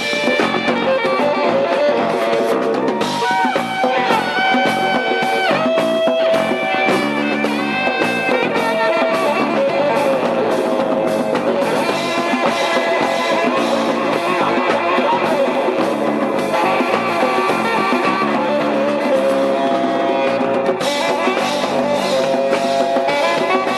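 Rock-style music with guitar and drums, playing steadily with a changing melody.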